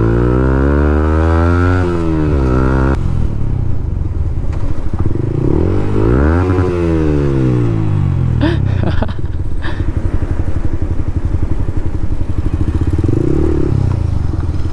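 Motorcycle engine running while riding, its pitch falling and rising several times as the throttle is closed and opened. A few short clicks a little past halfway.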